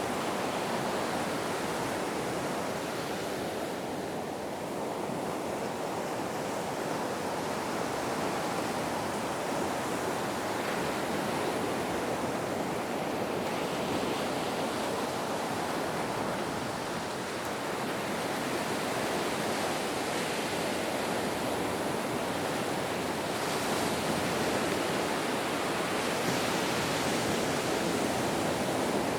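Ocean surf washing onto a beach: a continuous rush of water that eases off and swells again slowly.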